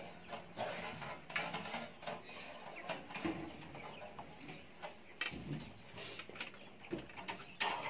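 Scattered light clicks and scrapes of thick steel wire being worked and twisted at the edge of a corrugated metal roof, with a few short, low bird calls in the background.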